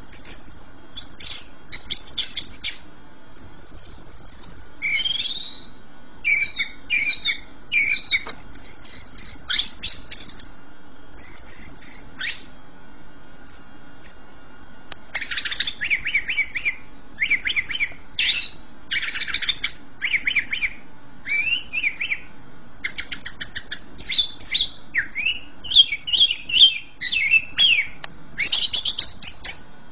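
Caged cucak ijo (green leafbird) singing continuously in a varied song of rapid chattering trills and sharp chirps, with a brief clear whistle about four seconds in.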